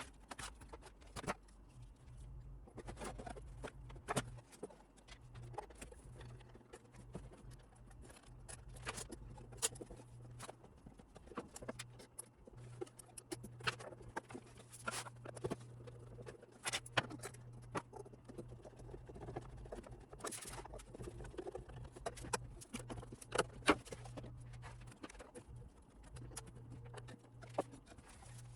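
Irregular small clicks and taps of hands, tools and parts being handled at a workbench during radio repair, over a steady low hum that briefly drops out a few times.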